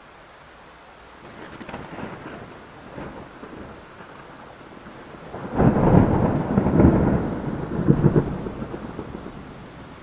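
Thunder rolling over steady falling rain. A low grumble builds about a second in, then a much louder peal breaks out midway and rumbles for a few seconds before fading.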